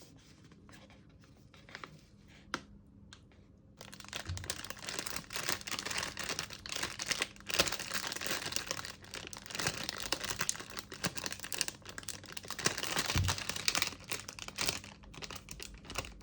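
Packaging being crinkled and torn: after a quiet start, a dense run of crackles and clicks begins about four seconds in and goes on to the end.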